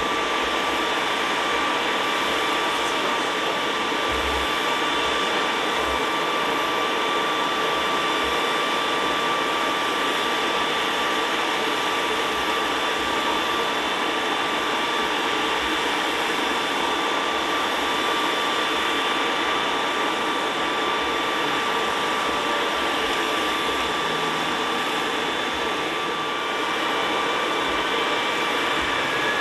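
Jet aircraft engines running steadily: an even rush of noise carrying a constant high-pitched whine, with a faint rising tone near the end.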